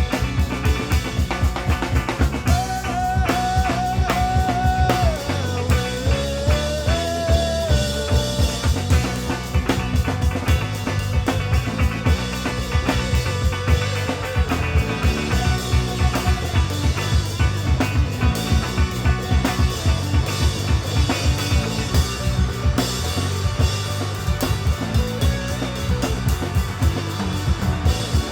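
Live band with drums, bass, guitar, banjo and violin playing an instrumental passage with a steady, driving drum beat; a held, wavering melody line stands out in the first several seconds.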